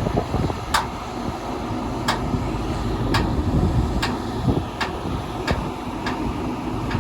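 Heavy harvest machinery running with a steady low rumble, joined by a series of sharp ticks roughly every second that come gradually closer together.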